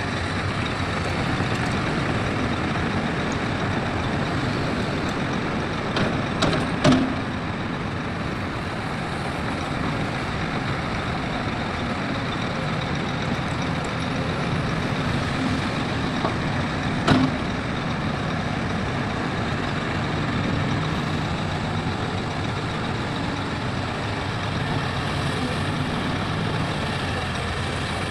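Heavy diesel construction machinery running steadily, with a few sharp metallic knocks about six to seven seconds in and again at around seventeen seconds.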